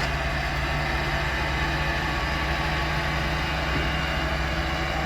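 Heavy diesel engine of road-building equipment running steadily at an even speed.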